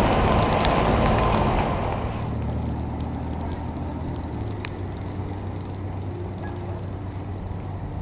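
Loud machine noise of a snow loader blowing snow into a dump truck, fading away over the first two seconds. It gives way to a much quieter, steady low rumble with a faint hum.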